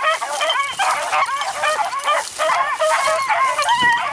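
A pack of beagles baying and yelping without a break, many voices overlapping, as they run a rabbit's trail.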